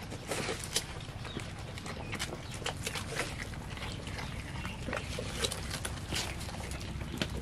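Goats chewing and tearing at bananas and their peels, with irregular short crackles and smacks.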